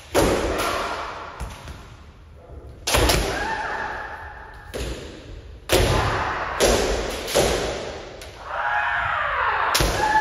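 Kendo practice in a large wooden-floored hall: about a dozen sharp cracks of bamboo shinai striking armour and barefoot stamping on the floor, several pairs at once, each echoing in the room. Long drawn-out kiai shouts sound between the strikes, loudest near the end.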